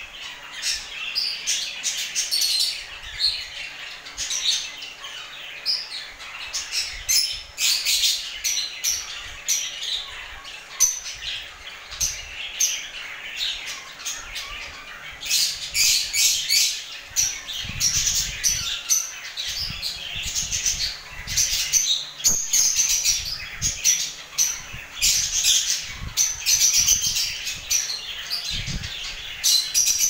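A flock of lovebirds chattering: a dense stream of short, shrill chirps and squawks, busiest in the second half, with a few low thumps.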